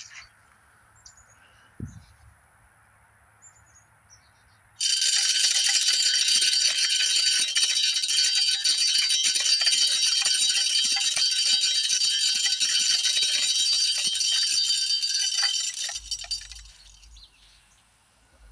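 Hanging spin-cast deer feeder running its test cycle: the battery spinner motor slings corn, making a loud, dense rattle of kernels off the spin plate. It starts suddenly about five seconds in, runs steadily for about eleven seconds, and dies away.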